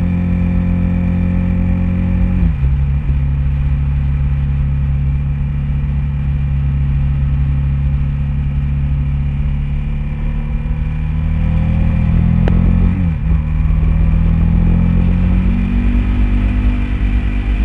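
Honda VTR1000 SP1's 90-degree V-twin engine running hard on track, heard from a fairing-mounted onboard camera. The engine note drops about two and a half seconds in, dips and recovers again a little past halfway, and climbs near the end as the bike pulls out of a corner.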